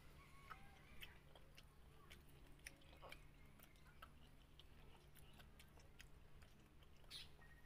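Faint close-up chewing of rice and fried fish, with small wet mouth clicks and smacks at irregular moments, over a steady low hum.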